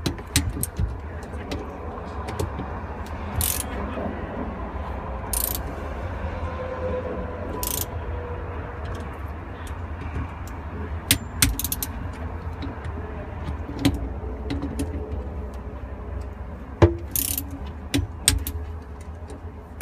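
Torque wrench ratcheting and clicking as the bolts of a pipe clamp fitting are tightened to 25 foot-pounds, with scattered metal clinks of tools and hardware over a steady low hum.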